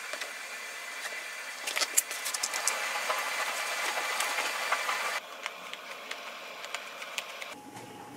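Rustling and light clicking of hands working thick cotton macramé cord and shirt sleeves, over a steady hiss; louder from about two seconds in until about five seconds, then softer.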